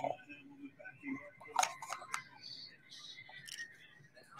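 Trading cards and a small box lid handled by hand: light rustling with a few sharp clicks, the loudest about a second and a half in.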